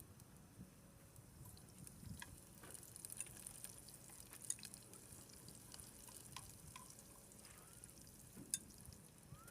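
Faint crackling and sizzling of food grilling over charcoal: scattered small crackles over a soft hiss.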